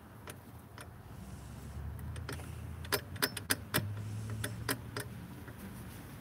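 Chicken pecking and scratching in wood shavings: irregular sharp taps and clicks. A low steady hum sits underneath and grows louder about four seconds in.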